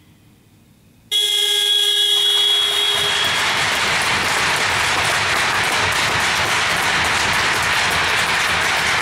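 An ice rink horn blasts suddenly about a second in and sounds for roughly two seconds, then gives way to steady crowd cheering and clapping, the usual sign of a goal.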